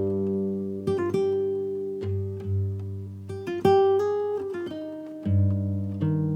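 Background music: slow plucked acoustic guitar, single notes and low bass notes ringing on.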